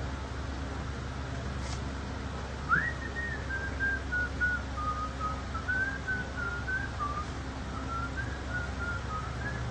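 A person whistling a tune: it starts about three seconds in with an upward slide and goes on in short stepped notes, over a steady low hum. A sharp click sounds just before the whistling begins.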